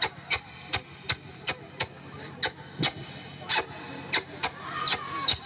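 Repeated smacking kiss sounds made with the lips into a handheld stage microphone, sharp clicks about two to three a second, over a faint steady hum from the sound system.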